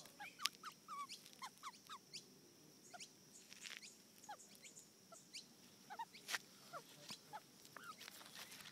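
Australian magpie close by, giving faint short chirps and soft clicks, scattered irregularly.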